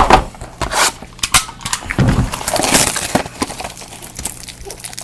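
Cardboard card boxes and packaging being handled and pulled open: irregular crackles, scrapes and taps of cardboard and wrappers.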